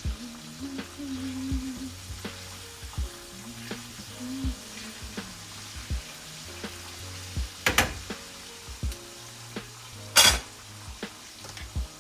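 Chicken frying in hot oil: a steady sizzle with scattered small pops, and two sharp louder hits, one about two-thirds of the way in and a louder one near the end.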